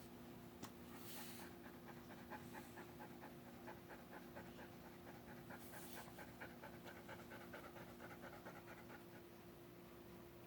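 Dog panting fast and faintly, about four pants a second, the anxious panting of a dog frightened by thunder.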